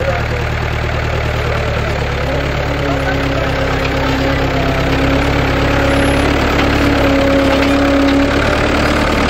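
New Holland farm tractor's diesel engine running steadily at a low, even pitch, with a steady whine joining in about two seconds in.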